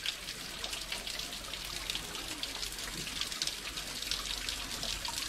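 Thin waterfall trickling down a mossy stone wall and splashing onto the rocks below, a steady pattering splash.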